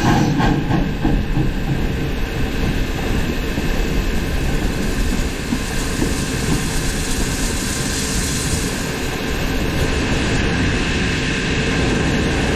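Virginia & Truckee No. 25 steam locomotive running along the track: a steady, noisy rumble of the engine and its wheels on the rails.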